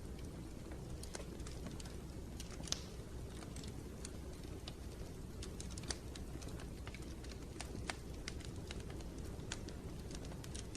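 Wood fire burning in a fireplace: a steady low rumble of flames with irregular sharp crackles and snaps, a few louder pops among them.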